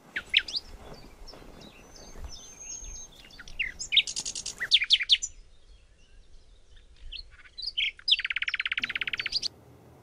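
Songbirds singing and calling: quick chirps and downward-sweeping whistles, with a fast high trill about four seconds in and a lower, longer trill near the end.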